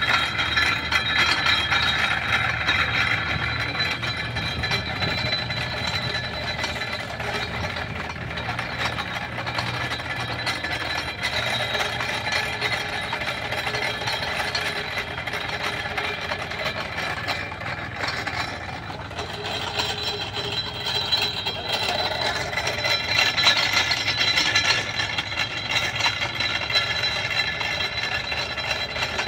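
Apple grinder of an antique cider press crushing whole apples as they are fed into its hopper, a continuous crunching, rattling clatter.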